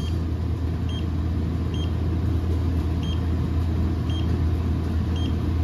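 Steady low hum of a running motor, with a faint short high beep about once a second.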